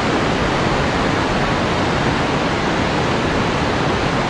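Water pouring from open dam gates: a steady, loud rush of falling water and spray.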